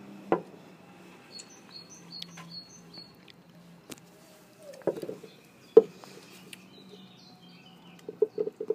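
Small birds chirping in the background, with a few sharp knocks, the loudest a little past halfway. Near the end a Dalmatian starts licking smoothie from a plastic cup, a quick run of wet laps.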